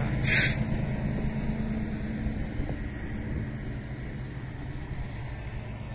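Heavy truck's diesel engine running steadily at low speed, slowly fading a little, with one short, loud hiss about a third of a second in.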